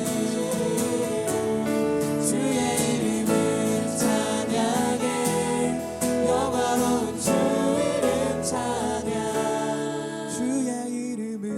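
A group singing a Korean worship song with instrumental accompaniment.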